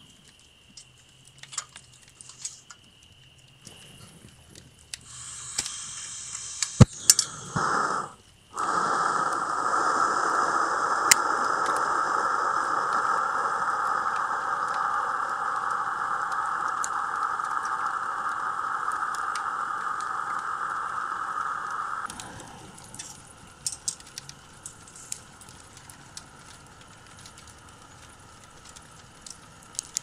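Gas camping lantern with a mantle on a blue screw-on cartridge being lit: a hiss comes in about five seconds in, a sharp click follows near seven seconds, then the burner gives a loud steady hiss. About twenty-two seconds in the hiss drops to a much quieter level, with a few faint ticks and crackles after.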